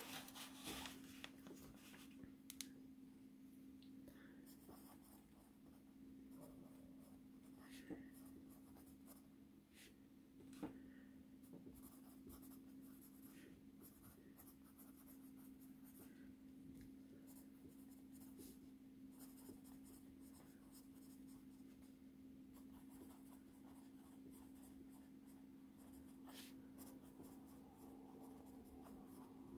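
Faint scratching of a Zebra Z-Grip Plus mechanical pencil's 0.7 mm lead writing on paper, with a few light taps, over a steady low hum.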